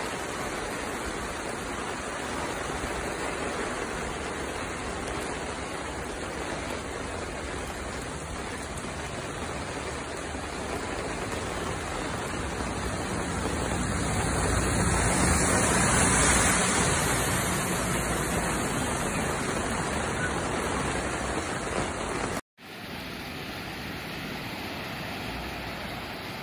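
Rushing floodwater and heavy rain, a steady loud rush that swells about halfway through. It cuts off about 22 seconds in and gives way to a quieter, steady hiss of heavy rain.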